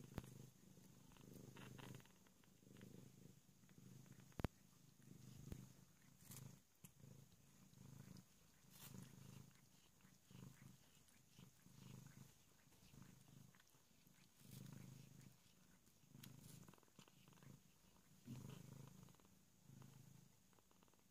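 Cat purring softly in slow swells that rise and fall every second or two. One sharp click about four seconds in.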